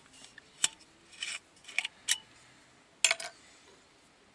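Seal and cap being twisted and torn off the neck of a green glass bottle: short scratchy crackles and a few sharp clicks, coming in small clusters, the last cluster about three seconds in.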